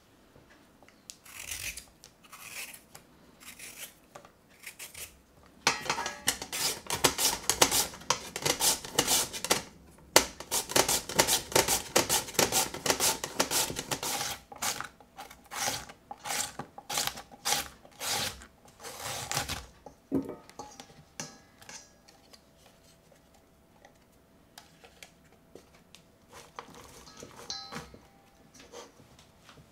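A raw potato is worked with a knife in a few short scrapes. Then comes a long, fast run of scraping strokes as the potato is pushed over a hand-held julienne grater into a stainless steel bowl. Near the end there is quieter rustling as the shreds are handled by hand in the bowl.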